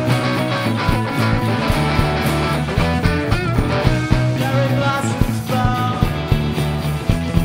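Rock music: electric guitar over a steady bass line and drum beat.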